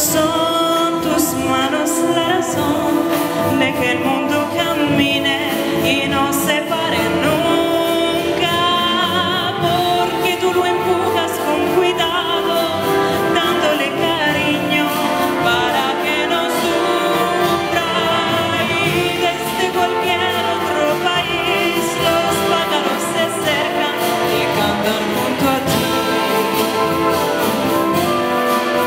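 Live big band playing with a woman singing over it in a long sustained line with wide vibrato.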